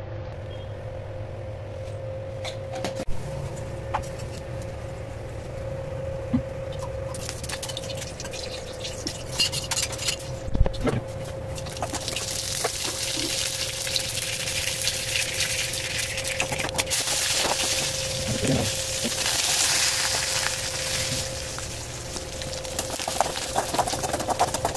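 Hot oil in a steel pan sizzling and spluttering as mustard seeds, dried red chillies and curry leaves fry for a tempering, much louder from about halfway through. A metal slotted ladle stirs and clinks against the pan a few times, over a steady low hum.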